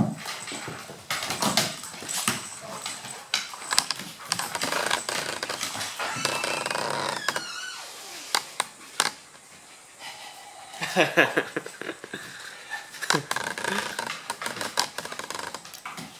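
A Maltese, a Golden Retriever and a Husky–German Shepherd mix playing rough on a wooden floor: claws click and scrabble on the boards as the dogs scuffle. Short dog noises come in a few clusters, louder about 11 and 13 seconds in.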